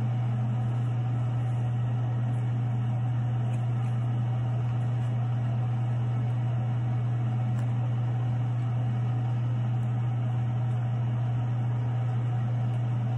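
Steady low hum of a ventilation fan running, with faint crinkling from a small plastic sachet being twisted and pulled at in the hands.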